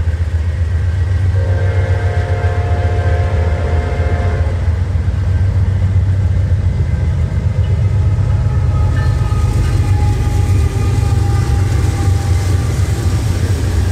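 Norfolk Southern diesel locomotives passing close by with a heavy, steady engine rumble. A horn chord sounds about a second in and holds for about three seconds.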